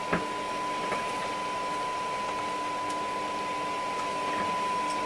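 A steady, single-pitch test tone with hiss from a Hacker Hunter RP38A transistor radio tuned to a tone-modulated FM test signal during alignment. A couple of light clicks from handling the set come near the start and about a second in.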